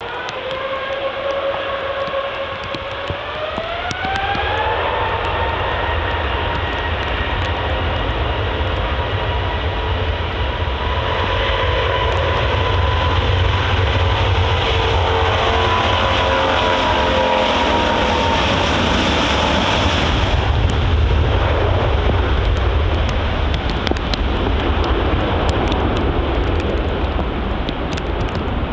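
Airbus A350's Rolls-Royce Trent XWB turbofans spooling up to take-off power, with a rising whine about four seconds in. The whine then holds steady over a broad roar and deep rumble as the jet accelerates down the runway, and the high hiss eases off about two-thirds of the way through.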